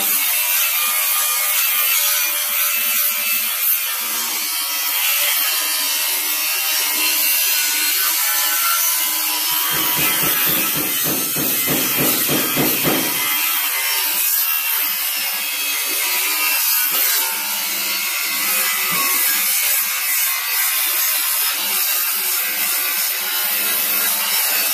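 Bauer 20V cordless angle grinder with an abrasive disc grinding steel, working along the folded hem edge of a VW bus door skin to separate the outer skin from the door frame. A loud, steady, high-pitched grind, with a rhythmic chatter of about four pulses a second for a few seconds in the middle.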